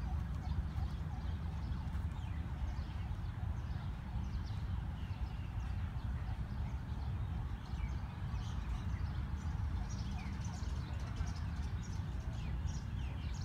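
Small birds chirping: many short, high calls that get busier about eight seconds in, over a steady low rumble.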